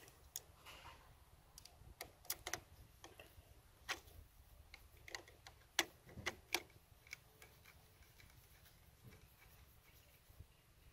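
Hand screwdriver tightening screws into a trolling motor transducer mount's clamp: faint, irregular clicks and ticks, bunched most closely in the first six or seven seconds and sparser after.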